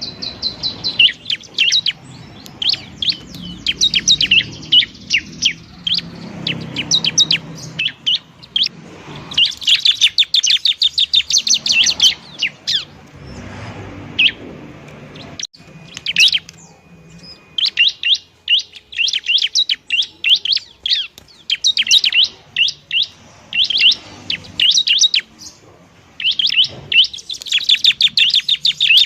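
Bar-winged prinia (ciblek) singing: rapid trains of high, sharp chirps, in bursts of one to several seconds separated by short pauses.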